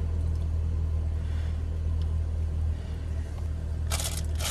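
Steady low rumble of a car running, heard from inside the cabin, with a couple of brief rustles near the end.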